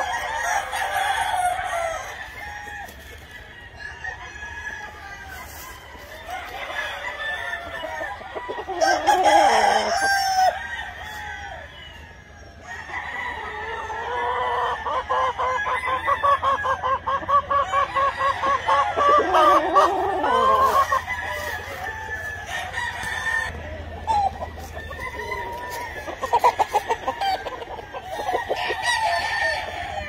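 Gamefowl roosters crowing over and over from several birds, with clucking in between and calls overlapping.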